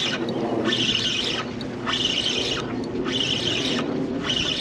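Fishing reel being cranked to bring in a hooked fish: a raspy whir in even strokes, about one a second.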